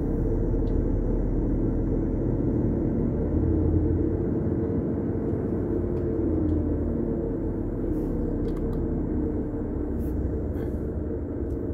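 Truck's diesel engine running steadily at low speed, a low rumble heard from inside the cab as it creeps forward in traffic. A few faint light clicks come near the end.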